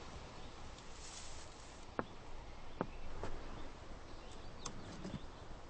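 Quiet outdoor ambience with a few light clicks and knocks, the clearest about two and three seconds in.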